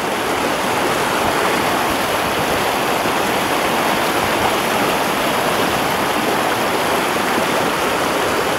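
Fast mountain stream rushing over rocks: a steady, loud rush of white water.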